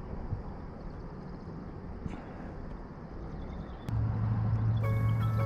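Quiet outdoor background noise with a low, uneven wind rumble on the microphone. About four seconds in, a click marks a cut where a steady low hum starts. Background music of held notes follows about a second later.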